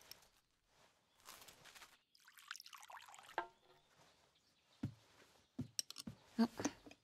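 Liquid pouring briefly, soup going into a bowl, about two seconds in, followed by a few light clinks of dishes and tableware near the end.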